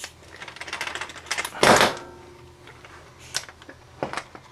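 Hand tools on metal: a ratchet wrench clicking rapidly, then a loud metallic clank with a short ring, then two more single clicks.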